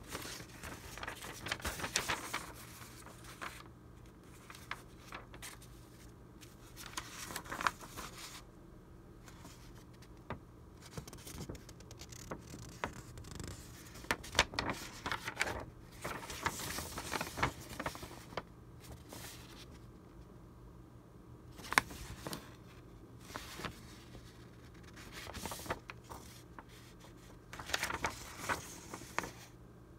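Old vintage paper documents being handled: the sheets rustle, crinkle and scrape in irregular bursts as they are lifted, turned over and shuffled, with one sharper snap about two-thirds of the way through.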